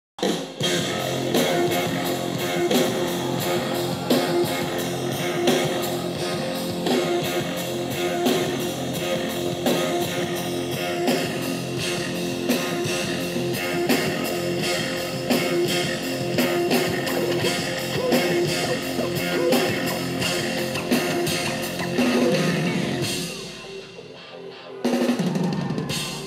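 Loud live music from a DJ mix on turntables with a drum kit playing along to a steady driving beat. It drops quieter a few seconds before the end.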